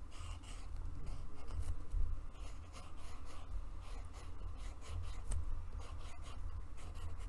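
Coloured pencil scratching on paper in many short, quick strokes as lines are sketched, over a steady low rumble.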